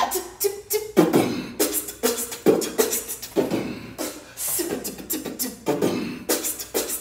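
A person beatboxing: rhythmic vocal percussion of sharp clicks and hissing hits mixed with short hummed notes.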